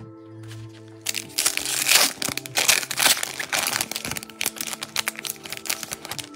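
Foil trading-card pack wrapper crinkling and tearing as it is ripped open by hand, starting about a second in and going on in a dense crackle, over steady background music.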